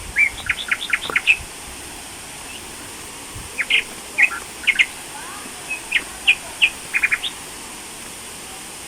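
A bird calling in quick series of short, high chirps, in three bursts, over a steady background hiss.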